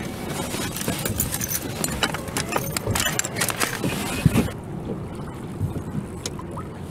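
Water slapping against a fishing kayak's hull with wind rumbling on the microphone, and irregular small clicks and knocks over the first few seconds that then die down.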